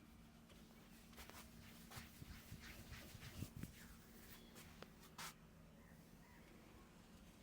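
Faint rubbing and scattered light taps of a barber's hands massaging a head and hair, with a few sharper clicks in the middle, over a low steady hum.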